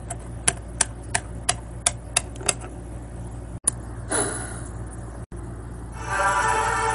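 Eight light plastic taps, about three a second, as a toy pet figure is hopped across a tabletop. Then a short breath blows out a tea-light candle, and music begins near the end.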